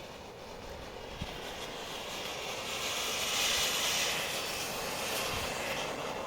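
Ground fountain firework spraying sparks with a steady hiss that swells to its loudest around the middle and then fades.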